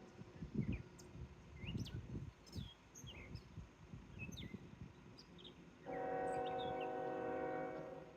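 Songbirds chirping outdoors: many short, quick calls scattered through, over uneven low rumbles. About six seconds in, a steady pitched tone joins for roughly two seconds, then stops.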